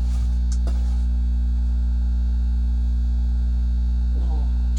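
Steady low electrical mains hum with its overtones, unchanging throughout, with a couple of faint clicks about half a second in.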